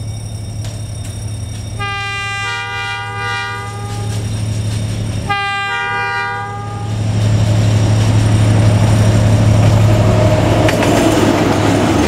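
Vietnam Railways D19E diesel-electric locomotive sounding its horn twice, several notes at once: a long blast of about two seconds, then a shorter one. After the second blast the diesel engine's low drone grows loud as the locomotive passes close, hauling container wagons.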